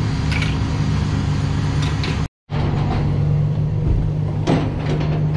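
The diesel engine of a Caterpillar 326F excavator running steadily. The sound cuts out for a moment a little over two seconds in, and there is a knock about four and a half seconds in.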